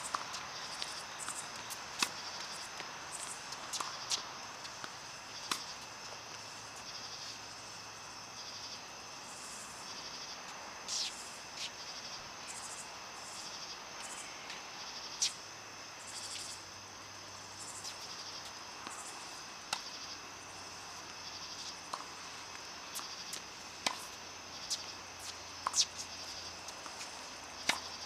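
Insects chirring steadily in pulsing high-pitched bands, with scattered sharp knocks of tennis balls being struck every few seconds.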